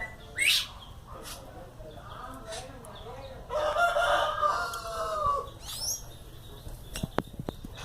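A rooster crowing once, a long call of about two seconds that falls away at its end, with a short rising chirp near the start and a few light clicks near the end.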